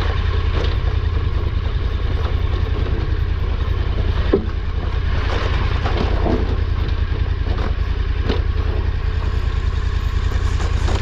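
KTM 1290 Super Adventure R's V-twin engine running steadily at low revs on a steep rocky descent, with a few sharp knocks from the trail about four and eight seconds in.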